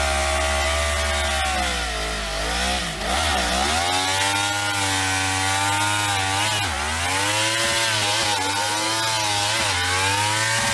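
Sport motorcycle engine revved hard while standing still, held at high revs, dropping and climbing back about two to three seconds in and again near seven seconds, with a few shorter throttle blips towards the end.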